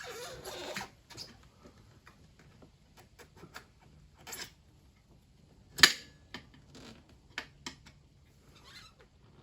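Tyre levers working a tubed motorcycle tyre's bead onto the rim: a short rubbing scrape at the start, then scattered clicks and knocks of lever against rim, the sharpest about six seconds in.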